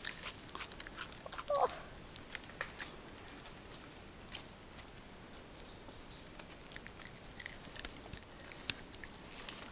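A lemur chewing and biting into a banana held in a hand, with irregular sharp clicks and smacks. A short wavering squeak comes about one and a half seconds in.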